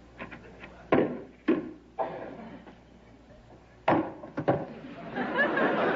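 A few sharp wooden knocks as a chair is pulled out and sat in at a wooden table and a plastic hard hat is set down on it. Near the end, studio audience laughter swells.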